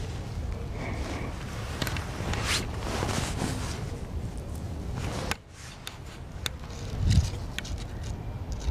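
Rustling and scraping noise over a low rumble, with scattered sharp clicks, a sudden drop in level a little past halfway and a dull thud about seven seconds in; no crow calls.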